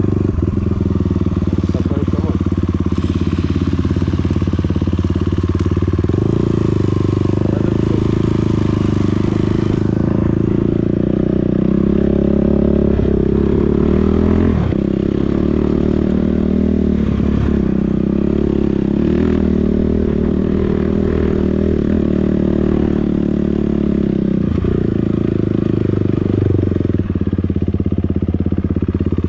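Enduro motorbike engine running steadily loud, its note rising and falling with the throttle as the bike is ridden off-road, with a few knocks from the terrain.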